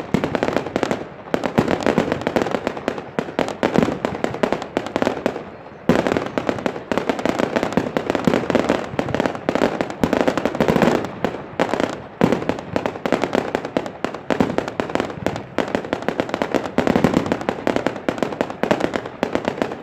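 Aerial fireworks bursting overhead in a continuous rapid string of bangs and crackles, with one sharp loud bang about six seconds in.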